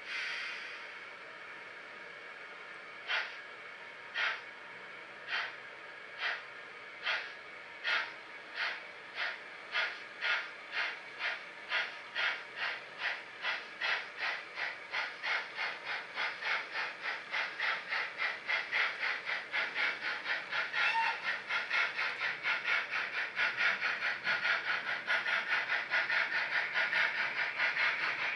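Model steam locomotive's sound decoder through its small onboard speaker: a short hiss of steam, then exhaust chuffs starting about three seconds in, slow at first and quickening steadily as the engine pulls away and gathers speed.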